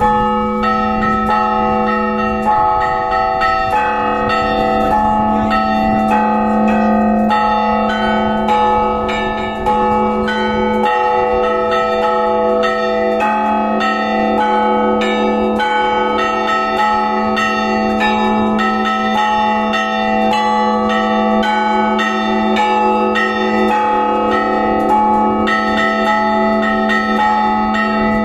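Russian Orthodox church bells in a festive Easter peal: the small bells struck in quick, rhythmic patterns, several strokes a second, over the steady ringing of a larger, lower bell.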